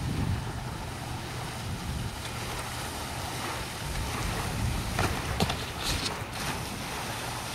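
Wind buffeting the camera microphone: a steady, low noise, with a few short knocks or gusts about five to six seconds in.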